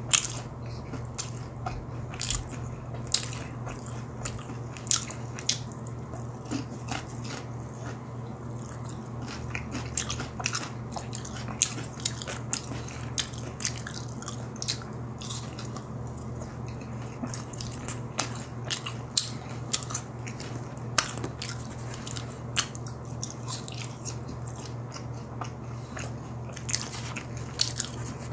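Close-miked chewing and crunching of crispy seasoned fried potato sticks, with many sharp crunches spread throughout, over a low steady background hum.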